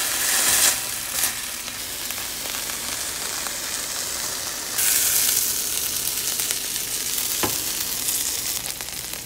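Ground beef sizzling as it browns in a frying pan and is stirred and broken up, then quesadillas frying in the pan. The sizzle steps up louder about five seconds in.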